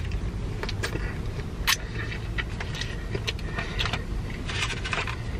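Close-up eating sounds: short crackles and clicks of a hash brown being bitten and chewed, thickest near the end. Under them runs the low, steady rumble of a car idling.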